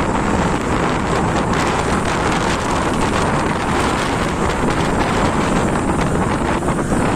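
Steady wind buffeting the microphone of a motorcycle rider at speed, with road and engine noise underneath.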